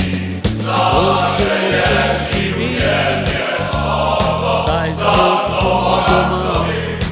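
Male vocal group singing a slow patriotic song in Slovenian over a steady low accompaniment.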